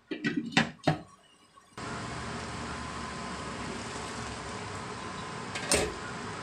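A glass lid clinks onto a wok a few times. From about two seconds in, milkfish steaks in sauce sizzle steadily in the uncovered pan, and near the end a metal spatula knocks once against the wok.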